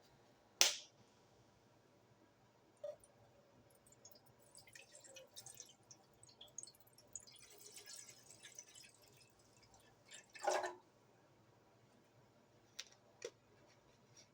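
A few sharp clicks and knocks, one about half a second in and a louder one about two-thirds of the way through, with faint rustling and ticking between them and two small clicks near the end.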